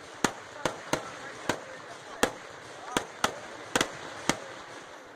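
Kerala temple-festival fireworks (vedikettu) going off: a rapid, irregular series of sharp explosive bangs, about ten in five seconds, two of them almost together near the four-second mark.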